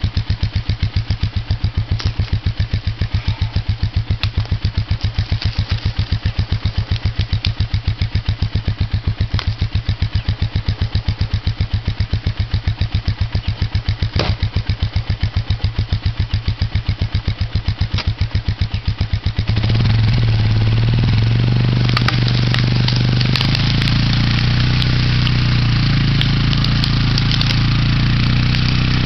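Polaris 500 HO ATV's single-cylinder four-stroke engine idling with an even, rapid pulse, then about two-thirds of the way through it opens up suddenly into a louder, steady run as the quad pulls away under load, skidding a log behind it. Scattered sharp ticks and crackles follow while it drags.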